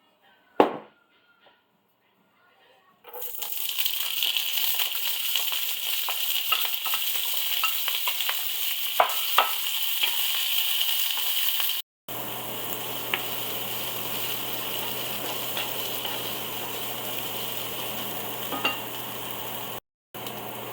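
Food sizzling in a hot frying pan, starting abruptly about three seconds in after a single knock and running as a steady hiss with a few utensil clicks. After a cut about twelve seconds in, the sizzling goes on a little quieter over a low hum.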